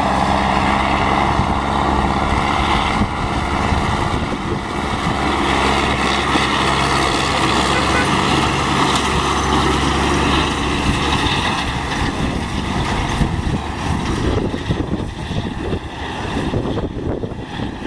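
MTZ-82 Belarus tractor's four-cylinder diesel engine running steadily under working load while towing a fertilizer spreader, with a broad hiss over the engine note. The engine grows fainter after about twelve seconds as the tractor moves away.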